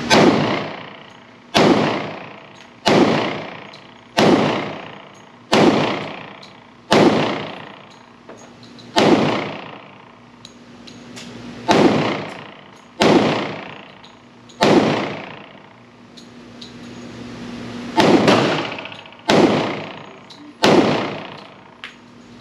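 Glock 20 10mm pistol fired about a dozen times in slow, deliberate shots, one every one to three seconds, with a longer pause midway. Each shot rings out in the reverberant indoor range.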